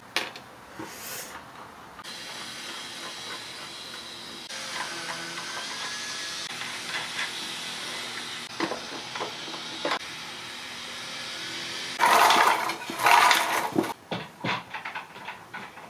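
Hand assembly of a plywood camera carriage, its bearing wheels being bolted on with a wrench: scattered clicks and knocks of metal parts over a steady hiss. About twelve seconds in there is a louder rasping scrape lasting a couple of seconds.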